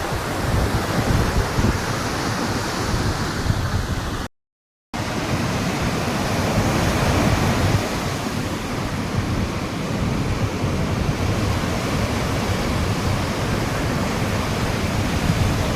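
Rough monsoon sea surf breaking and rushing onto the beach in a continuous roar. The sound drops out completely for about half a second a little past four seconds in.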